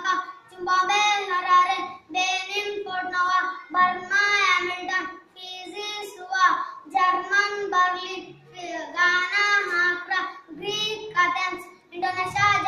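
A young boy singing a song solo and unaccompanied, in phrases with held notes and short pauses for breath between them.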